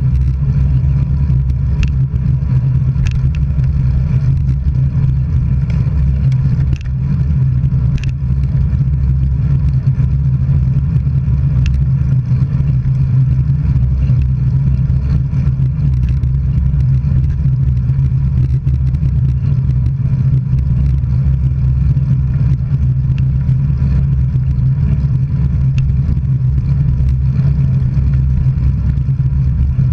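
Steady low rumble of wind and road noise on a camera carried along on a bicycle ridden at speed, with a few sharp clicks from bumps or the bike's parts.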